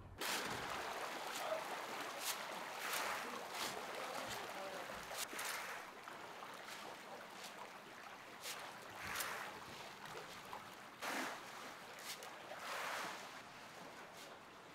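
Water churning and splashing in a trout farm pond, a steady rush with louder splashes every second or two.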